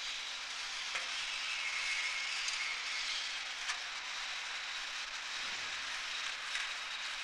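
Aircraft-assembly workshop ambience: a steady hiss over a low hum, with a few light clicks about a second in and again near the middle.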